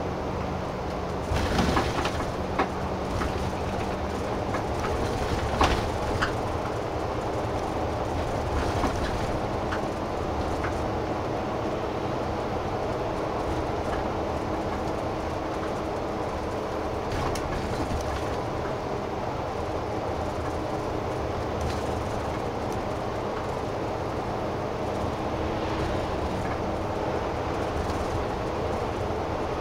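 Bus cabin while driving: steady engine hum and road noise, with a few knocks and rattles in the first ten seconds or so.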